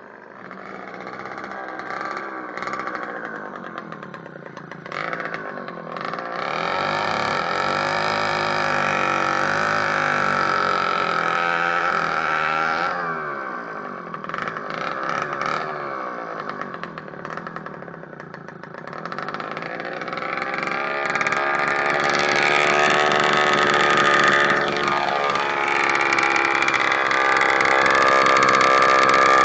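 Krasnyj Oktiabr 48 cc two-stroke moped engine on a motorized bicycle running, its pitch rising and falling repeatedly as it revs and moves. It grows louder and steadier near the end, close to the exhaust.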